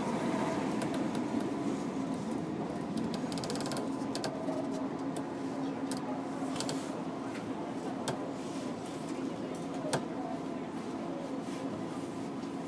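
Electric commuter train rolling slowly past and coming to a stop: a steady mechanical hum with scattered clicks and knocks, and a short run of rapid ticking about three seconds in.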